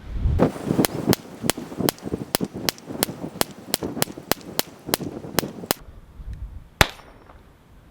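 Taurus TX22 .22 LR pistol fired in rapid succession, about sixteen shots at roughly three a second, then one more shot about a second later. It cycles every round of cheap M22 ammunition without a stoppage.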